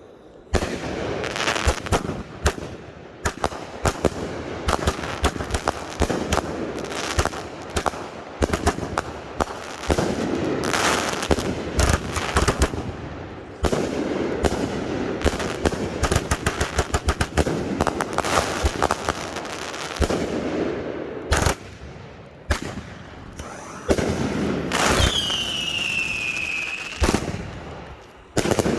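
Firework cakes firing: a dense run of sharp reports, some in rapid crackling strings, starting about half a second in. Near the end a whistle falls in pitch.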